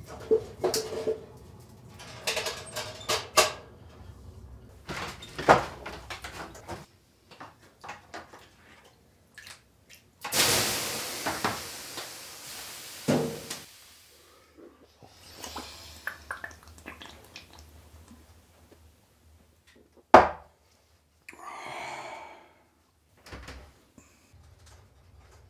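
Metal clanks and knocks at a wood-fired sauna stove's firebox door over the first few seconds. About ten seconds in, a sudden loud hiss that fades over three to four seconds, as water thrown on the hot stones turns to steam. Later, one sharp knock, then a short creaking rasp.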